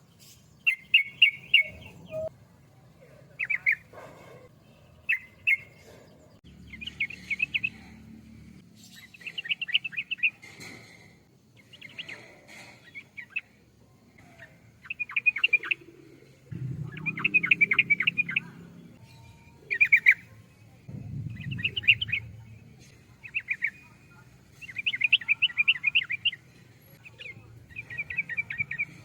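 Yellow-vented bulbul (trucukan) singing: short, bright chattering phrases of quick notes, each about a second long, repeated every second or two. A low rumble rises under the song now and then.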